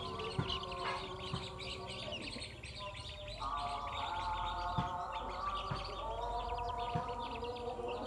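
A brood of chicks peeping continuously in quick, overlapping high peeps. A steady pitched hum joins in about three and a half seconds in.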